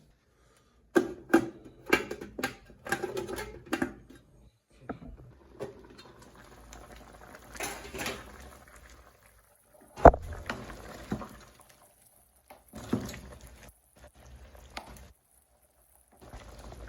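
A spoon clattering and knocking against a cooking pot as pieces of beef and cow foot are stirred, in irregular runs of sharp knocks with one loud knock near the middle, over a faint simmer.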